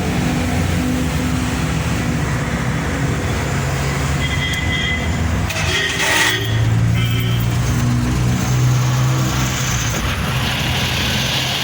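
Multicab mini truck's engine running after being started on its newly rewired ignition-to-starter feed. The note shifts a little about four and six seconds in, with a short clatter around six seconds.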